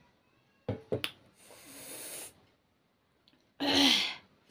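A person's mouth and breath sounds just after a drink: two sharp clicks, a breathy exhale, then a louder voiced exhale near the end.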